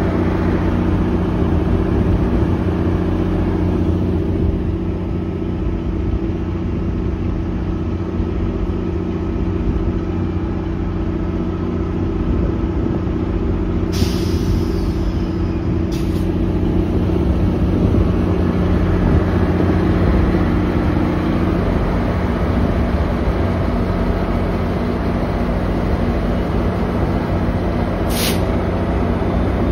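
GO Transit diesel locomotive idling while stopped, a steady deep engine drone with several steady tones, one of which drops out about two-thirds of the way through. Short hisses of air come about halfway through and again near the end.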